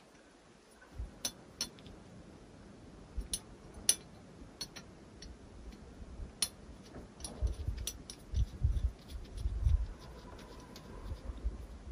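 Sparse light clicks and clinks, irregularly spaced, with a few dull low thumps in the second half.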